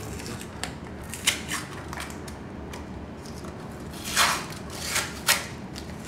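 Packaging being unwrapped by hand from a small box: rustling and crinkling with scattered sharp crackles, the loudest just over a second in and around four to five seconds in.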